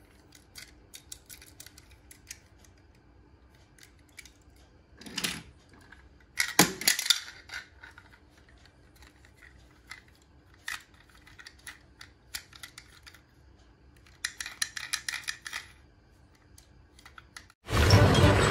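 Small plastic toy cars clicking and rattling as they are handled, with scattered light clicks and a few longer rattles. Near the end a much louder sound cuts in abruptly.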